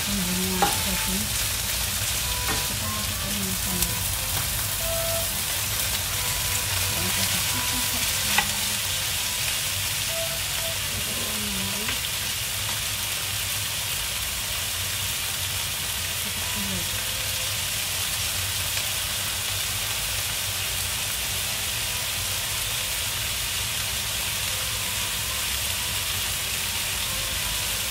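Beef, garlic and broccoli sizzling steadily in oil in a frying pan as they are stir-fried with a wooden spatula. A few sharp knocks sound in the first eight seconds.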